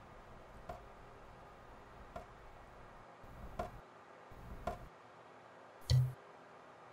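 Faint, sharp ticks about every second and a half, with one louder, deep thump near the end.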